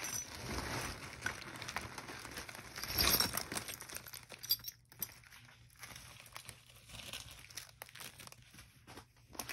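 Small clear plastic jewelry bags and a shipping envelope crinkling as they are tipped out onto a towel and handled, with light clinks of metal jewelry. The loudest rustle comes about three seconds in.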